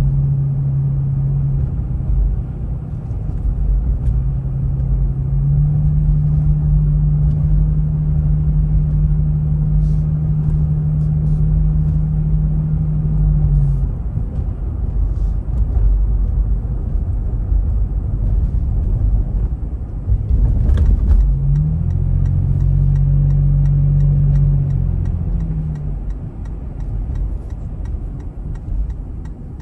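Car driving along a town road: steady low rumble of tyres and engine, with a low drone that fades in and out several times. There is a brief knock about two-thirds of the way through.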